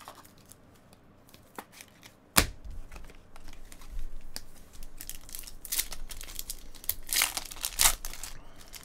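Foil wrapper of a trading-card pack being torn open and crinkled, in crackling bursts that are loudest near the end. A single sharp tap comes about two and a half seconds in.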